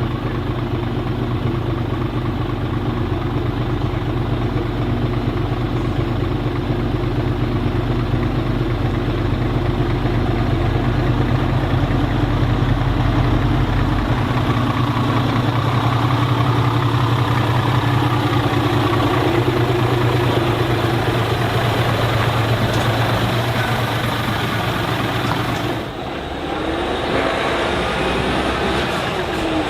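Heavy truck diesel engines running steadily at low revs. The sound changes abruptly about 26 seconds in.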